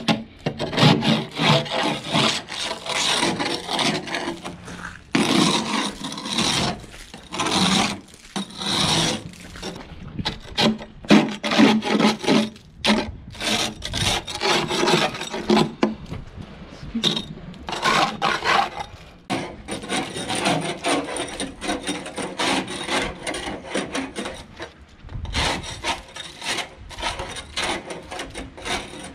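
Barnacles being scraped off a fishing boat's hull by hand: irregular runs of rough, rasping scraping strokes, with short pauses between them.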